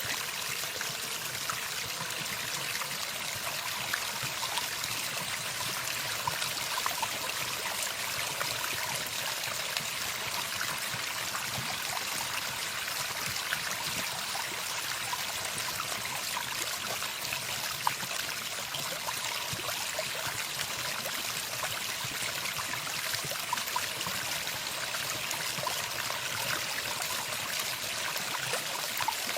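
Running water of a stream: a steady flowing and trickling sound with small splashes, with no birdsong.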